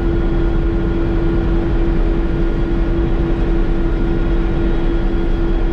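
Iseki HC1100 general-purpose combine harvester running steadily: a loud, constant machine drone with a steady hum and deep rumble, stopping abruptly at the very end.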